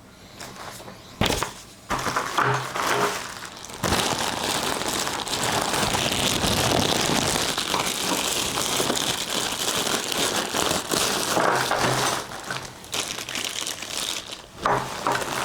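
Plastic packaging crinkling and rustling as parts are unwrapped and handled. There are a few sharp knocks in the first four seconds, then steady crinkling from about four seconds in.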